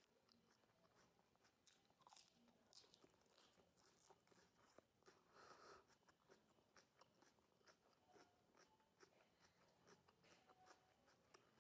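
Faint, close-up crunching of crisp raw lettuce being bitten and chewed: a run of small crackles, with one louder crunch a little past halfway.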